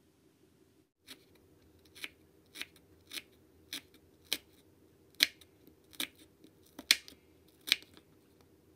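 A tiny kitchen knife slicing through a small onion and tapping a miniature wooden cutting board: about ten sharp, separate chops, a little under a second apart.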